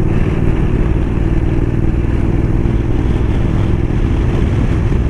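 Motorcycle engine running steadily while riding at road speed, with wind noise on the microphone.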